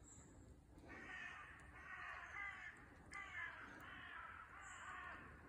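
Faint, harsh bird calls in two runs of several calls each: the first about a second in, the second about three seconds in.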